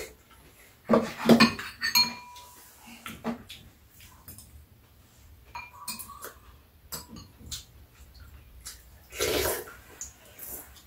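Metal spoons and chopsticks clinking and scraping against ceramic bowls and a metal tray during a meal, in scattered short clicks with a few ringing clinks. There are two louder eating noises, about a second in and about nine seconds in.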